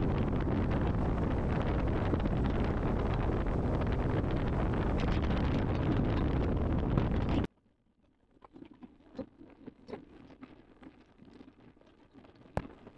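Wind buffeting the microphone on a boat under way, a loud, steady rush that cuts off suddenly about seven and a half seconds in. After that it is quiet, with faint scattered knocks and one sharp click near the end.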